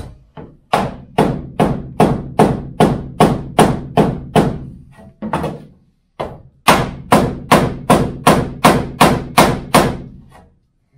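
Sharp knocks, about two and a half a second, in two runs with a short pause around the middle, each ringing briefly. A wooden batten held against the steel body of a VW T2 Bay camper van is being struck, knocking on the panel.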